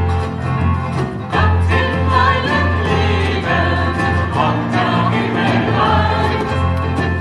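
Live band music: acoustic guitars, violin and keyboard playing together, with several voices singing together from about a second and a half in.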